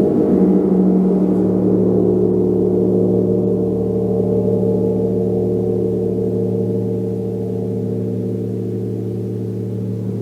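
Gong ringing: a sustained wash of many overlapping low tones with no clear new strike, slowly easing down in loudness over the second half.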